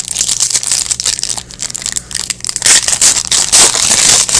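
Crinkling and tearing of a plastic or foil trading-card pack wrapper being handled close to the microphone. It is loudest in the second half.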